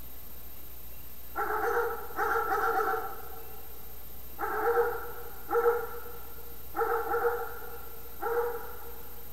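A dog barking: six drawn-out barks, roughly in pairs, spread over several seconds.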